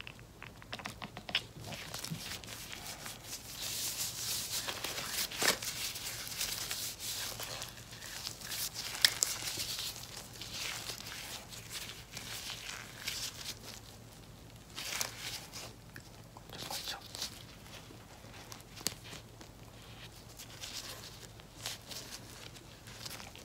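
Plastic hand-mask gloves, moist with lotion inside, crinkling and rustling as the gloved hands rub, squeeze and flex against each other, with irregular small clicks.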